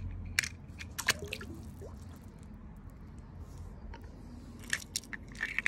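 Small water splashes and drips, with a few sharp clicks from a die-cast toy car on the stone edge of a pool, over a low steady hum.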